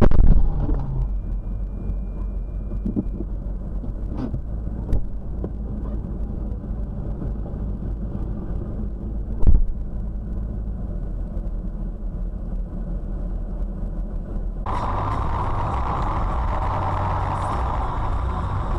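A dull thump as another car hits the front of the dashcam car at low speed, heard from inside the cabin, followed by the steady low hum of the car's engine and a second short knock about halfway through. A few seconds before the end, a louder, hissier mix of engine and road noise from a car driving takes over.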